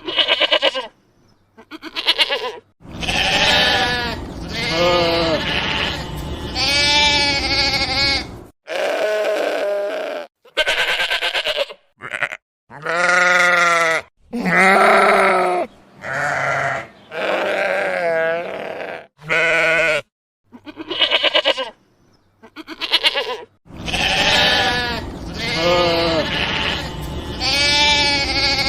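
Sheep bleating again and again: a string of separate calls, some high and wavering, some lower and steadier, split by short abrupt silences.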